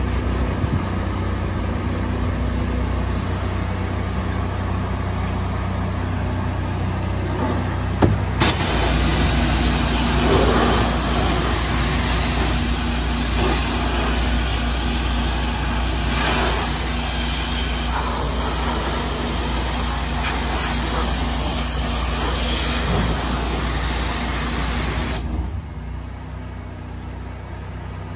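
A bin-washing trailer's engine runs steadily. About eight seconds in there is a click, and a 230-degree hot-water pressure wand opens up with a loud hiss of water blasting into a plastic trash bin. The spray runs for about seventeen seconds, then cuts off, and the engine runs on.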